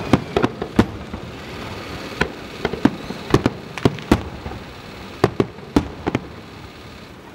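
Aerial fireworks display: an irregular string of sharp bangs from shells bursting overhead, over a steady hiss, thinning out after about six seconds.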